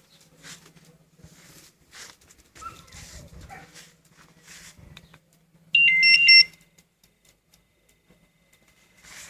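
Winfar two-way motorcycle alarm giving a short burst of electronic chirps about six seconds in: a quick run of high, stepping beeps lasting under a second, the loudest sound here. Before it, only faint irregular rustling noises.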